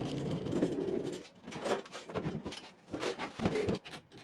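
Wooden dresser drawers sliding, wood rubbing and groaning on wood: one long drag about a second long, then several shorter scrapes and bumps.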